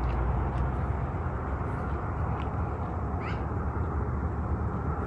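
A short, high-pitched animal call, rising in pitch and lasting about half a second, comes about three seconds in over a steady low rumble of outdoor noise.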